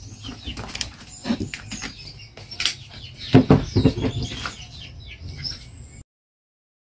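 Scattered knocks and clatters as a glass-sided tray is carried and set down, with short bird chirps among them. The sound cuts off abruptly about six seconds in.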